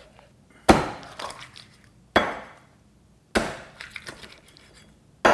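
A cleaver chopping through a raw chicken backbone onto a wooden cutting board: four heavy chops, a second or more apart.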